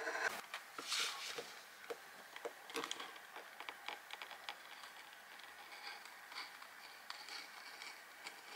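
Faint, irregular small clicks and scrapes of hand work on gasket paper while cutting out a replacement paper gasket for a boat generator, a little busier around the first second.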